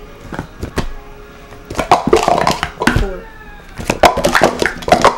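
Plastic sport-stacking cups clacking against each other and the mat as they are stacked up and down at speed: a few single clicks, then a dense run of rapid clatter from about two seconds in, and another near the end.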